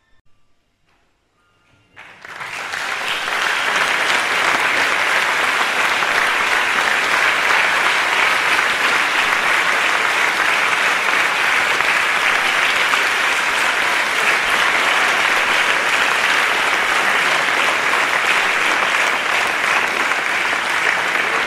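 A large crowd applauding, breaking out suddenly about two seconds in and holding steady and loud. A faint last note of music dies away just before.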